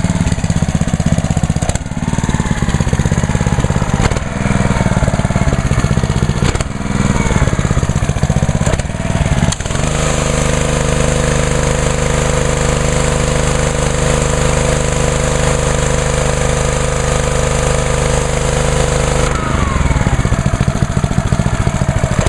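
Honda-engined Ryobi 3,100 PSI gas pressure washer running at an uneven idle. About ten seconds in, the idle-down system brings the engine up to a steady full speed with a hiss of spraying water, as when the spray-gun trigger is squeezed. It drops back to idle with a falling note about nine seconds later.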